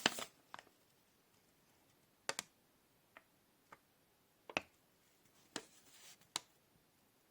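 Handling noise: about eight light, sharp plastic clicks and taps at irregular intervals, one of them a quick double about two seconds in, as the small USB charger plug is turned over in the hands.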